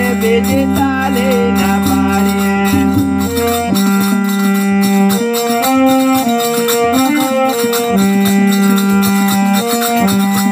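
Instrumental passage of a Gujarati desi bhajan: a reedy, held-note melody stepping between pitches over a steady rhythmic beat. A low drone under it stops about four seconds in.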